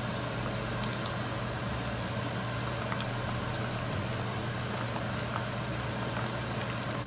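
Kitchen range hood fan running with a steady hum, over the sizzle of chicken wings deep-frying in a pot of hot oil.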